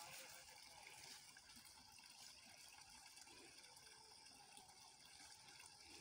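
Faint, steady trickle of a small spring-fed stream, water running over a rock ledge into a shallow pool.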